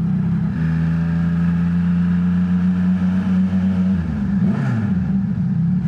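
Yamaha XSR900's inline three-cylinder engine running at a steady cruising pitch under a rider, with wind rushing past the helmet. About four seconds in, the engine note drops and then climbs back up.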